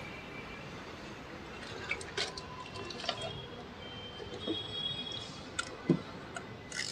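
Scattered light clicks and knocks of hand work in a car's engine bay, made while an ignition coil is being removed and fitted.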